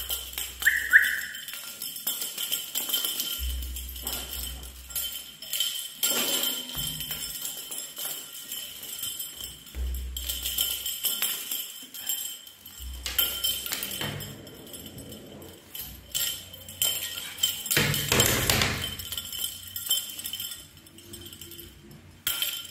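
Background music with jingling, tambourine-like percussion and deep bass notes every few seconds.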